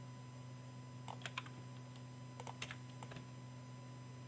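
Faint clicking of a computer keyboard and mouse in a few short clusters, over a steady low electrical hum.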